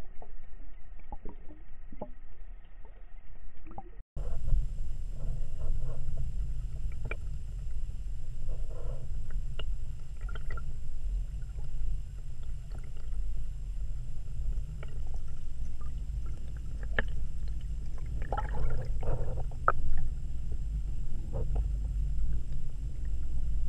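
Underwater sound picked up by a submerged camera: a steady low rumble of moving water with scattered clicks and knocks. A cut about four seconds in ends a thinner, quieter stretch of clicks.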